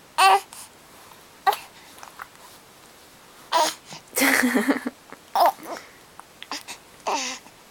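A baby hiccupping: five short, sharp hiccups, one to two seconds apart, with a longer baby vocalization a little past the middle.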